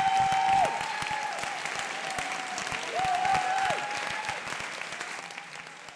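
Audience applauding, a dense patter of many hands clapping that gradually fades out. A high steady tone runs under the clapping and swells briefly twice, about three seconds apart.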